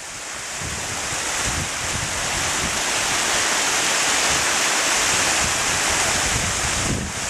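Cloudburst rainwater running off down a grassy slope: a steady rushing hiss that grows louder over the first few seconds, with wind buffeting the microphone.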